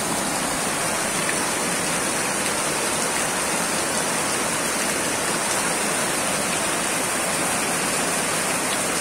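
Muddy floodwater from an overflowing river rushing fast down a flooded street in heavy rain: a steady, unbroken rush of water.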